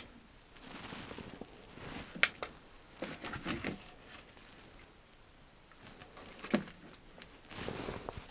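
Handling noise from gear on a wooden table: sharp clicks and knocks with short bursts of rustling as a handheld EMF meter is picked up and set back down, the sharpest clicks about two seconds in and again past the middle.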